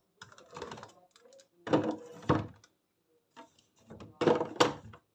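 Plastic bottles being handled and set down, knocking against each other and the counter in three short clusters of clunks.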